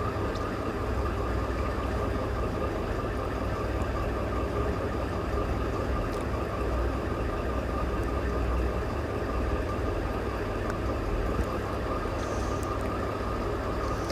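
Sewing machine running steadily, stitching fabric strips down onto paper along a curved line.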